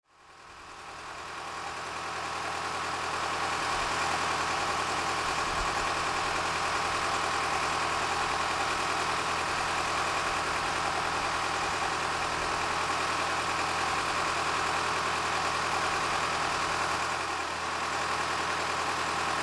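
Small 1957 V6 diesel locomotive's engine idling steadily. It fades in over the first few seconds and then holds an even idle.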